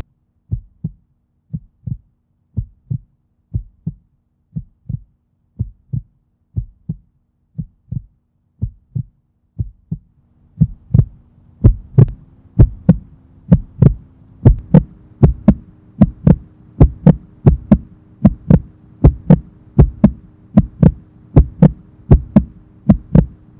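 Heartbeat sound effect: paired low thumps, lub-dub, about once a second. About ten seconds in the beats grow louder and a little faster, and a low held drone comes in under them.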